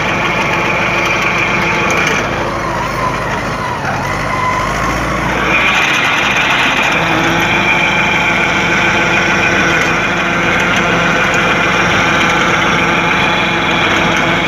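MTZ-80 tractor's four-cylinder diesel running steadily under load while driving a PTO-powered rotary tiller that churns the soil behind it. A deeper rumble swells briefly about four to six seconds in.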